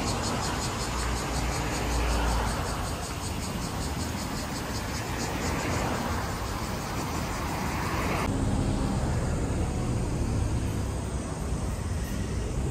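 Outdoor street ambience with car traffic going by. A fast, even, high-pitched pulsing runs over it and stops abruptly about eight seconds in, where the background sound changes.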